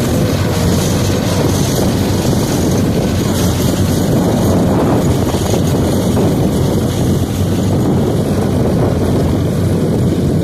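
2014-model tractor's engine running steadily, a constant low hum with no change in speed.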